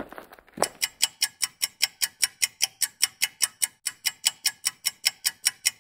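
One soft knock about half a second in, then rapid, perfectly even ticking, about six ticks a second, like a fast clock.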